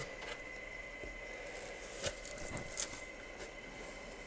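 Faint handling of a cardboard box as it is taken up and its lid worked open: a few soft knocks and scrapes, the clearest about two seconds in and again just under three seconds in. A faint steady high whine sits in the background.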